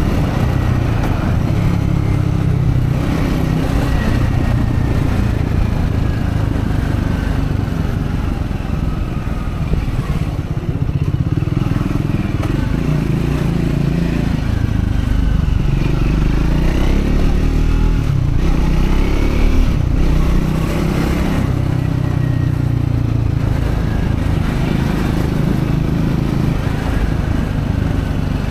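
Triumph Scrambler 400X's single-cylinder engine running on the move during its break-in, its pitch rising and falling several times as the rider accelerates and eases off.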